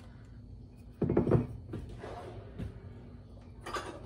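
A dull clunk about a second in, followed by two fainter knocks.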